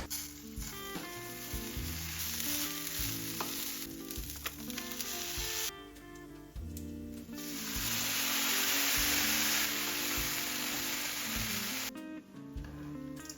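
Food sizzling and being stirred in a hot frying pan, louder in the second half and stopping about a second before the end, with soft background music underneath.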